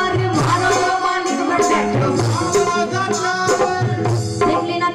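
Live devotional bhajan band playing an instrumental passage: held keyboard-like melody notes over a steady drum beat with hand percussion.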